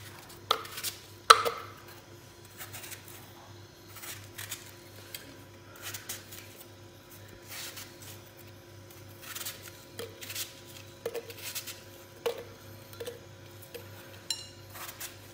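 A knife cutting chunks from a peeled apple and the pieces dropping into a glass blender jar: scattered light clicks and knocks, the loudest two in the first second and a half, over a low steady hum.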